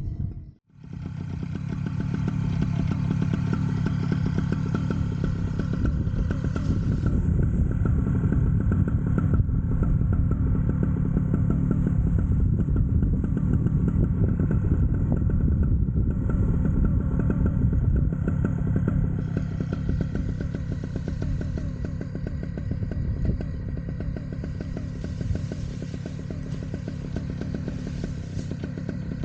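Vittorazi Atom 80 paramotor's single-cylinder two-stroke engine running steadily under power with its propeller, after a brief dropout right at the start. It eases off a little about two-thirds of the way through.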